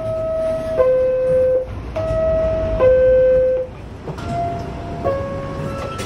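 New York City subway car door chime: a two-note descending "ding-dong" played three times about two seconds apart, the third quieter, the warning that the doors are about to close. A low rumble runs underneath.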